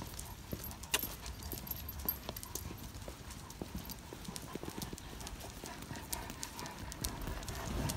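Claws of two Great Pyrenees clicking irregularly on a hard floor as they walk, with footsteps among them.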